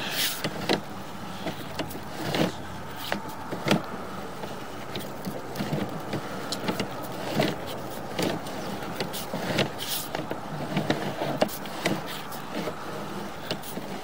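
Sewer inspection camera's push cable being pulled back out of the pipe and fed onto its reel: irregular clicks, knocks and rattles over a faint low steady hum.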